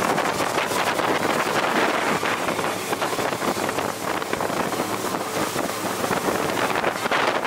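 Wind buffeting the microphone aboard a motorboat under way, over a steady rush of water and engine noise.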